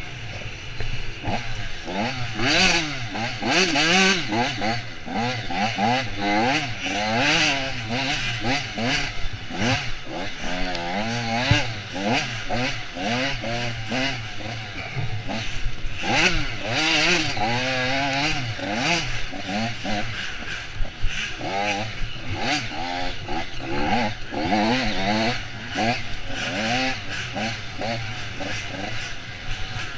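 Dirt bike engine heard from on board, its revs rising and falling again and again with constant throttle changes while racing through a tight woods trail, with frequent knocks from the rough ground.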